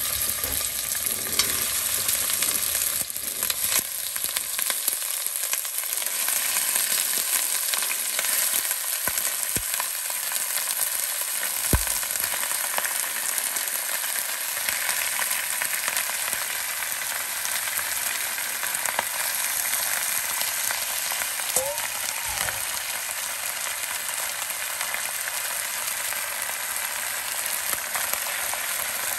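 Lamb chunks sizzling in hot oil as they sear in the pot, a steady frying hiss broken by a few knocks. Near the end a wooden spoon stirs the meat.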